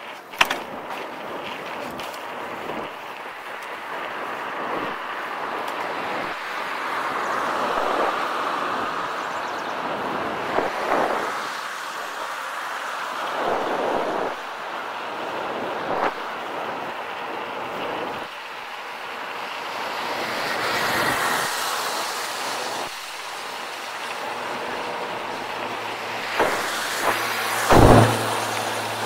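Mountain bike descending a rough trail: wind rushing over the microphone, with tyre rumble and the bike rattling. Sharp knocks come from bumps, the loudest a heavy thump near the end.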